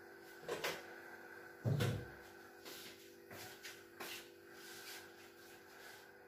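Kitchen handling noises at a stovetop: a couple of light clicks, one heavier low thud about two seconds in, then a few small ticks, over a faint steady hum.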